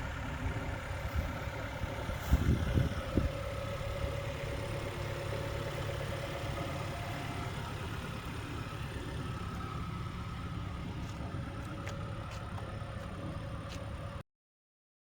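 An engine idling steadily, with a few louder knocks about two to three seconds in. The sound cuts off suddenly near the end.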